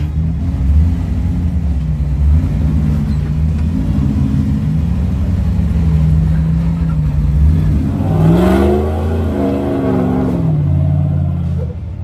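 Rock-crawling Jeep's engine working under load as it climbs over rock, with a rev that rises and falls back about eight seconds in.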